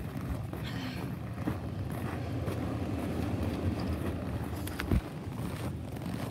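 Low rumble of wind and handling noise on a phone microphone held close, with a sharp thump about five seconds in.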